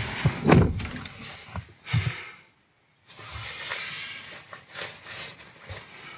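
Knocks and rustling of a person settling into a car's driver's seat, with a louder knock about two seconds in. After a brief cut to silence, a soft hiss with a few light knocks follows.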